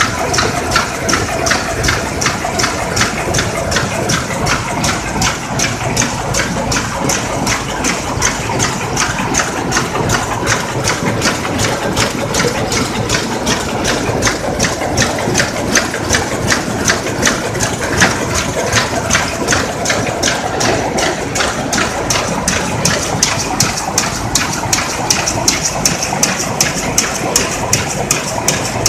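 Terry towel weaving loom running, a steady machine din with regular sharp beats about three times a second.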